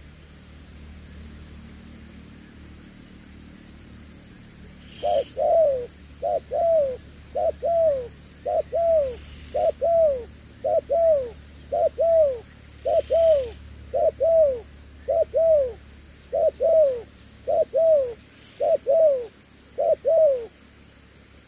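Spotted dove cooing: a long run of about fourteen evenly paced double coos, each note falling in pitch, starting about five seconds in.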